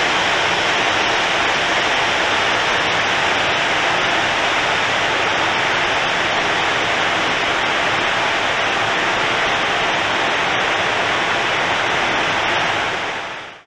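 Vauxhall Astra VXR running on the rollers of a chassis dyno during a power run, heard as a loud, steady rush of noise in which no rising engine note stands out. It fades away just before the end.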